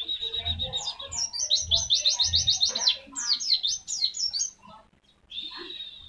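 A caged white-eye (pleci) singing its rapid 'tembakan' song: fast strings of high, sharp notes, with a run of quick repeated down-slurred notes about two seconds in. The song thins out near the five-second mark, and a last short phrase follows.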